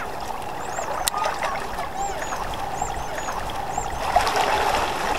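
Small waves lapping and trickling among shoreline rocks, a steady watery wash, with short high chirps repeating over it.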